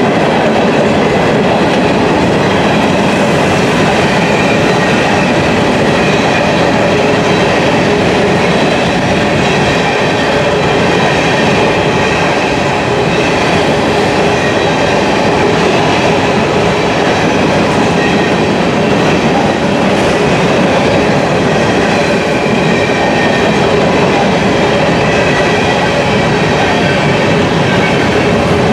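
Freight cars of a grain train rolling steadily past at close range: continuous wheel-on-rail noise with clickety-clack over the rail joints and a faint high ringing from the wheels.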